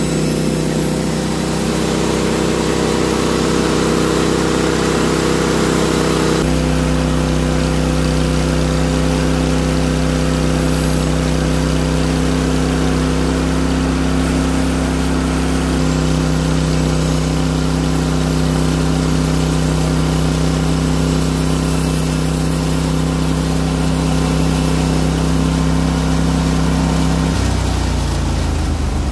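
Norwood HD36 portable sawmill's engine running steadily at speed. About six seconds in its note drops to a lower, heavier pitch, and near the end the pitch falls as the engine slows.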